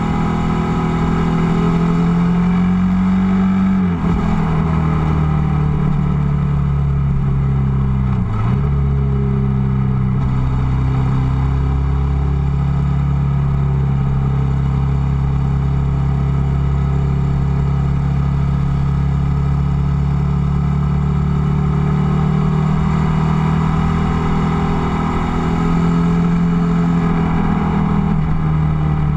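Ducati Multistrada motorcycle engine under way, heard from a camera mounted on the bike. It shifts up twice in the first nine seconds, each shift a brief dip with a drop in engine pitch, then settles into a steady cruise.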